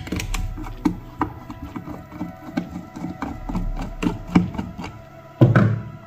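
Background music with held tones, over light clicking of a screwdriver turning screws out of an old hair dryer's plastic housing, and one louder knock on the plastic about five and a half seconds in.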